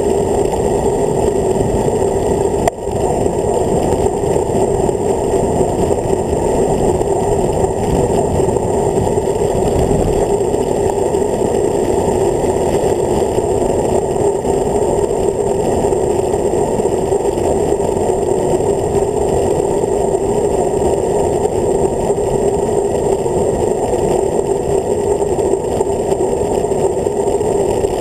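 Wind rushing over a road bike's handlebar-mounted camera during a fast descent, a loud steady rumble with a brief dip a little under three seconds in.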